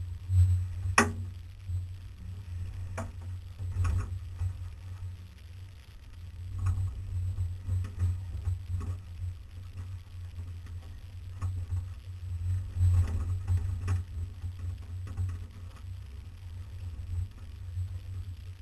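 Off-road vehicle crawling over a rough dirt trail: a low, uneven engine drone with the body and frame knocking and rattling over bumps, the sharpest knock about a second in.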